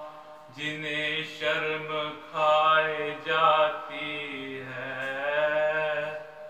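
A man chanting an Urdu Muharram salam (elegy) solo and unaccompanied, in a slow melismatic line with long held notes, starting about half a second in.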